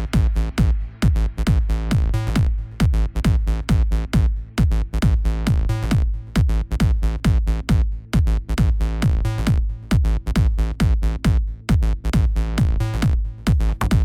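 Electronic dance music with a fast, driving drum-machine beat and heavy bass, no vocals.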